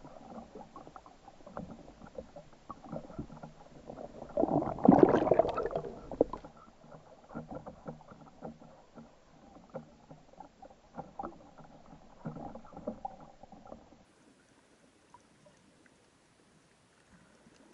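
Sea water sloshing and splashing around a camera bobbing at the surface, loudest in a splash about five seconds in. After about fourteen seconds it drops to a faint underwater hush.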